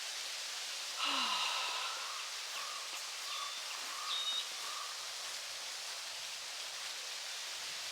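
Faint outdoor ambience: a steady hiss with some rustling, a brief murmur of tones about a second in, and a few short high chirps a few seconds in.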